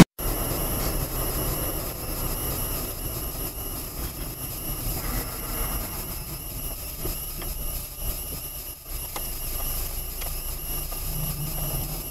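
Steady engine and tyre noise inside a moving car, picked up by a dashcam while driving on a snowy, slushy road.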